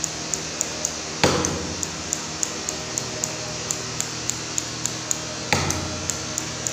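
Grooming scissors snipping at the fur around a dog's face in a steady rhythm of short, sharp clicks, about three to four a second. Two louder knocks come about a second in and near the end.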